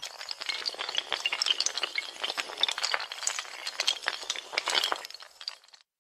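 A long chain of dominoes or tiles toppling: a rapid, dense clatter of hard little clicks and clinks that stops abruptly near the end.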